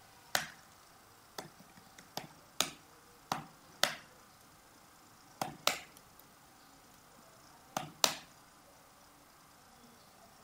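Computer keyboard keys and mouse buttons clicking: about a dozen sharp, separate clicks at irregular intervals, some in quick pairs, as figures are typed and cells are selected.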